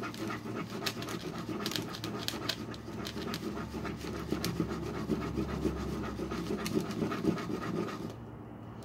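Metal spoon stirring thick slime on a paper plate: a steady wet squelching and scraping with many small irregular clicks, easing off near the end.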